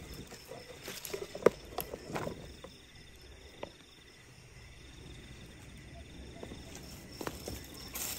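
Knocks and clicks of a cooking pan being handled and set on a portable gas stove, the sharpest about one and a half seconds in, then a quieter spell with a faint high insect trill and a few more light clicks near the end.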